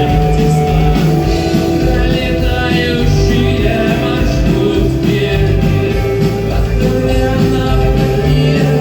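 Live rock band playing at full volume, with a singer over guitars, bass and drums.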